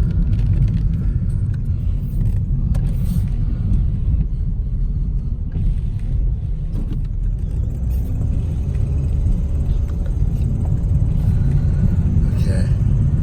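Car driving, with a steady low road and engine rumble.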